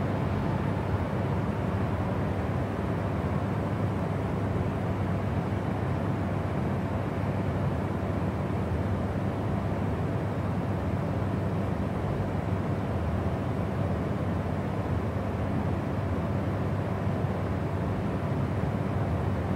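Jet airliner cabin noise in cruise: the steady low rumble and rushing air of engines and airflow heard from inside the cabin, even and unchanging.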